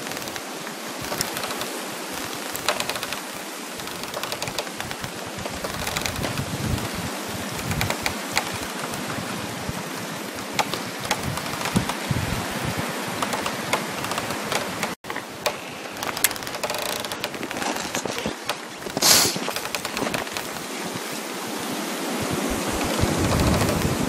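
Winter ambience of dense, fine crackling over a steady rushing hiss of wind. There is a momentary gap in the sound a little past halfway, and a short, sharper hiss of crackle near the end.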